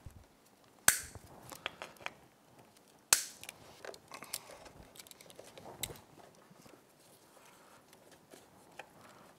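Two sharp clicks, about a second in and about three seconds in, with lighter clicks and handling noise between and after: plastic wiring connectors and hose fittings being pushed back together on an outboard engine.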